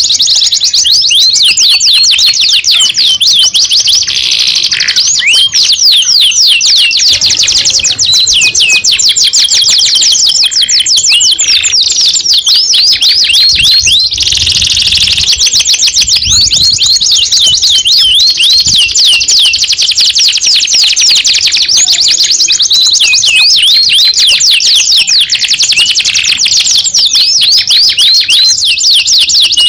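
Domestic canary singing without a break: long fast trills and runs of quick repeated sweeping notes, high-pitched and loud.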